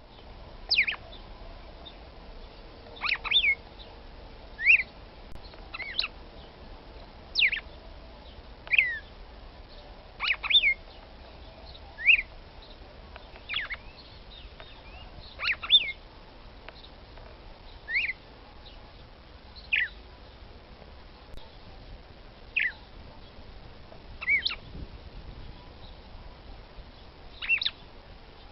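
Female red-cowled cardinal (Paroaria dominicana) giving short, sharp calls that sweep down in pitch, one or two at a time every second or two, over a faint steady hiss. It is a call used to rouse a male.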